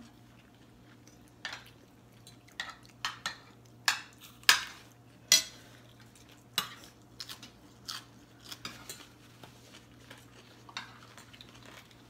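Metal spoons and forks clinking and scraping against ceramic plates during a meal, in irregular sharp clicks, the loudest two about four and a half and five and a half seconds in.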